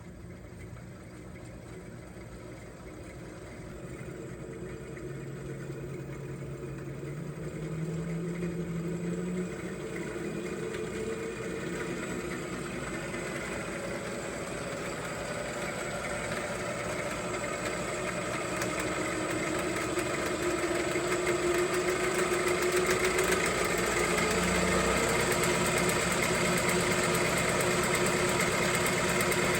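Restored Delta 1460 lathe running on its three-phase motor: a steady machine hum that grows gradually louder, its pitch stepping up a little twice.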